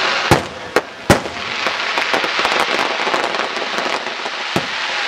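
Fireworks going off: three sharp bangs in the first second or so, then a dense crackle of many small pops, with one more bang near the end.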